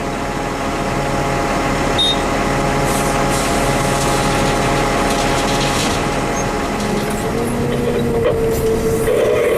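Heavy earthmoving machine's diesel engine running steadily under work. About three-quarters of the way through, a steady whine joins it.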